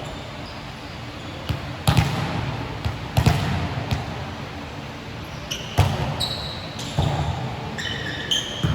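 Basketball bouncing on a court several times, each bounce a sharp thud, with short high squeaks near the end.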